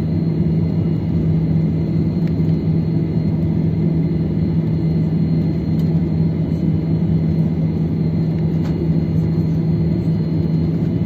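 Steady low rumble inside a jet airliner's cabin as it rolls out on the runway just after landing, with its spoilers up. The engines and rolling wheels run together with a constant low hum, and a couple of faint clicks come through.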